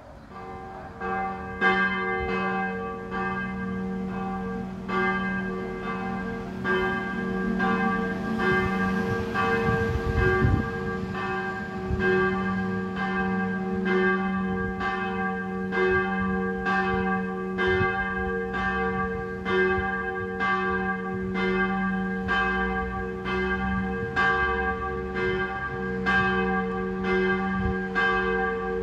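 Church tower bells ringing, struck about one and a half times a second, with a steady hum carrying on between strokes. The ringing starts about a second in.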